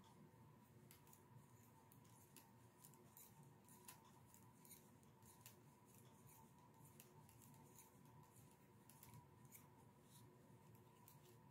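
Faint, irregular clicks of metal knitting needle tips tapping together as stitches are purled, about one or two a second, over quiet room tone with a faint steady hum.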